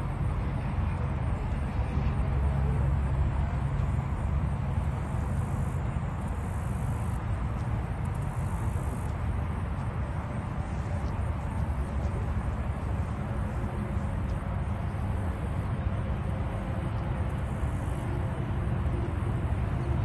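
Steady low outdoor rumble with no goose honks.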